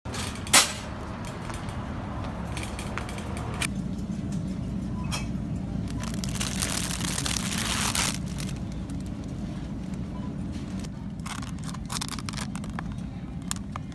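Grocery store background noise: a steady low rumble with scattered clicks and knocks, a sharp knock about half a second in, and a hiss lasting about two seconds near the middle.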